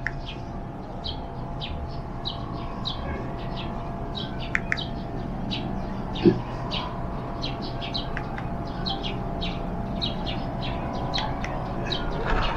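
Small birds chirping in the background, short high chirps repeating several times a second, over a steady faint hum. A brief low bump about six seconds in.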